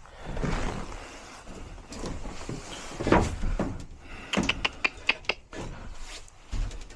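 Work on a furnace's gas valve: metal parts and hand tools being handled, with a knock about three seconds in and then a quick run of sharp metallic clicks and clanks.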